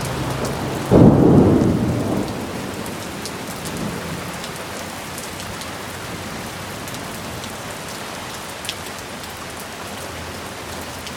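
A sudden clap of thunder about a second in, rumbling off over the next couple of seconds. Steady rain falls throughout, with scattered ticks of drops hitting a surface.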